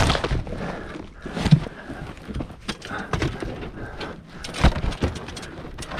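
Irregular knocks and splashes from a hooked muskie being played at the surface beside the boat, over a low rumble.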